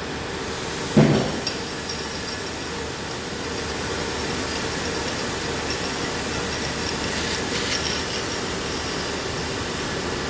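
12 kW CNC laser cutting machine at work on thick steel plate: a steady hissing, humming machine noise, with a single knock about a second in.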